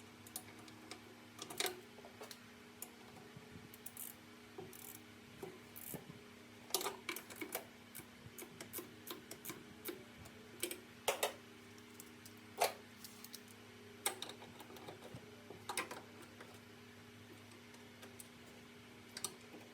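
Irregular clicks, taps and clinks of hand tools on metal as the bolts of a clutch pedal assembly are tightened from up under a truck's dash, over a faint steady low hum.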